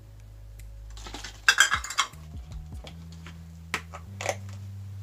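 Clatter of plastic measuring cups and kitchen utensils being handled over a mixing bowl: a burst of sharp clinks about a second and a half in, then two single clicks near the end. Soft background music with low notes runs underneath.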